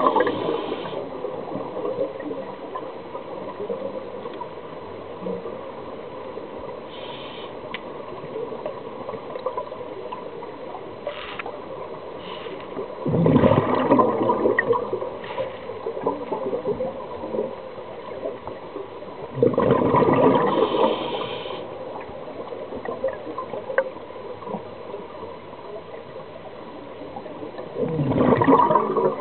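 Scuba diver's exhaled air bubbling out of the regulator: three loud gurgling rushes, about every seven seconds, over a steady underwater hiss.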